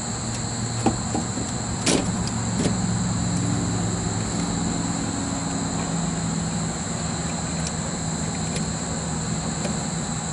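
A steady low engine hum, like a vehicle idling nearby, whose pitch steps up about four seconds in, under a steady high insect drone. A few sharp clicks about one and two seconds in come from pliers working the spade terminals on a contactor.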